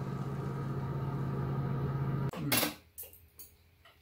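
Steady electric hum of an induction cooktop heating a frying pan, which cuts off abruptly about two seconds in. A short, loud rush of noise follows, then a few light clicks of utensils on dishes.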